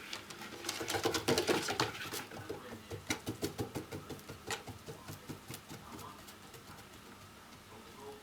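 Cat exercise wheel turning under a running cat: a rapid, rhythmic run of thuds and rattles, about five a second, loudest about a second in and dying away as the wheel slows.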